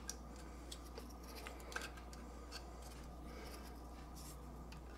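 Faint scattered clicks and light rubbing from small parts of a micro RC helicopter being handled and fitted by hand, about half a dozen small ticks over a low steady hum.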